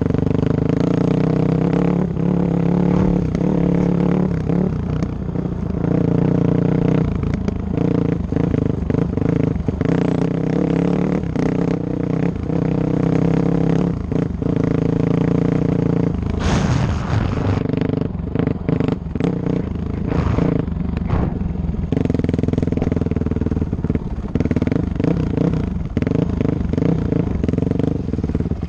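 Dirt bike engine running under way, its pitch holding fairly steady with small rises and dips as the throttle is worked. Frequent knocks and clatter come from the bike riding over rough ground, with a brief loud rush of noise about two-thirds of the way through.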